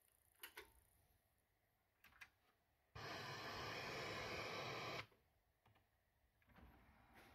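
Switch and relay clicks from a Toshiba SR-V10 stereo system being switched on. Then about two seconds of steady radio static hiss from its speakers, which cuts off suddenly. Near the end a faint rising mechanical sound begins.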